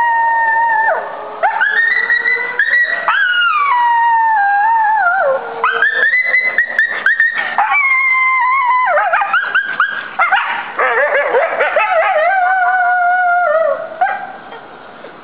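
Coyote howling and yipping: wavering howls that rise, hold and slide down in pitch, broken by quick runs of yips, stopping about fourteen seconds in. The howling is a response to a fire station siren.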